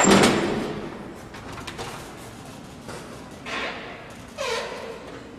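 A door bangs shut with a short ring-out, followed by two softer scraping sounds about three and a half and four and a half seconds in.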